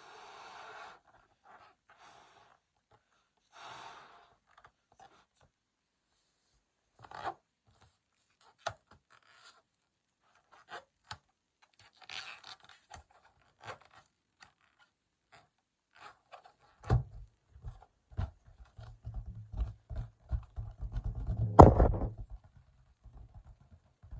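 Latex balloon being blown up with a couple of short breaths, then rubbing and small clicks of the latex neck as it is knotted. Near the end, a run of dull thumps as the tied balloon is patted and handled.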